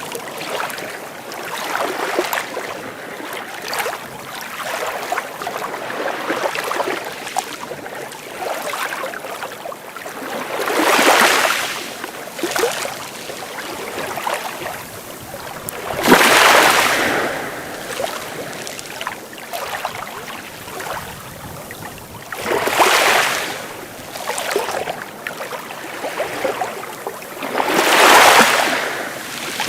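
Sea waves breaking and washing up a beach: a steady wash of water, with a louder surge of surf about every five to six seconds, four in all.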